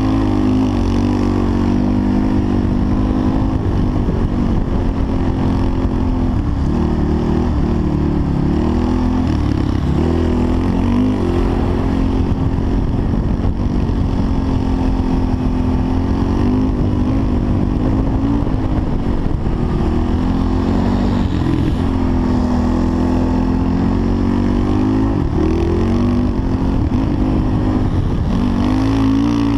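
Off-road vehicle engine running hard across sand, its pitch rising and falling with the throttle, under heavy wind noise on a helmet camera.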